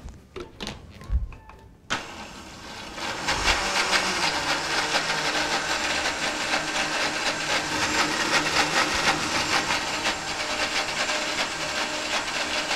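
Countertop blender switching on about two seconds in, after a few light knocks, and running steadily as it purées a thick, creamy potato-and-tofu sauce; it slows near the end.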